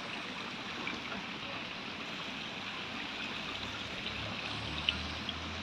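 Steady rush of running water, with a low hum joining in after about three and a half seconds.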